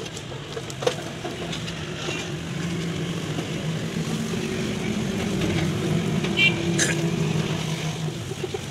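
Steady hum of a motor running in the workshop, a little louder from about two seconds in, with a few light clicks, one near the start and a couple near the end.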